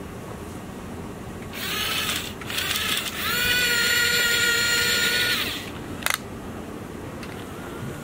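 Remote-control toy excavator's small electric motors and gears whining as the arm moves: two short whines, then a steady whine for about two seconds that stops sharply. A single sharp click follows.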